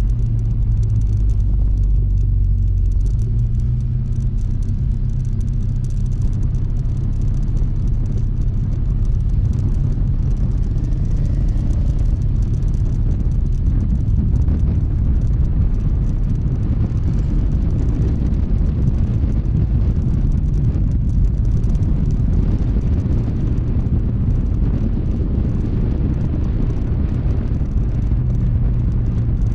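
Honda ADV160 scooter on the move: its single-cylinder engine running steadily under a continuous low rumble.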